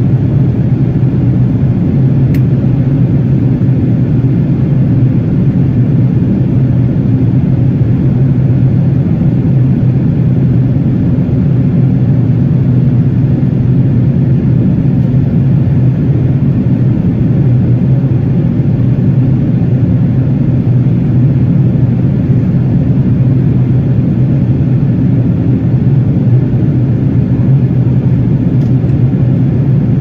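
Jet airliner cabin noise in cruise: a loud, steady low hum with rushing air above it.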